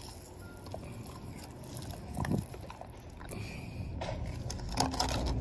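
A German shepherd eating pork ribs off the ground: scattered wet smacks and crunches of chewing over a low steady rumble.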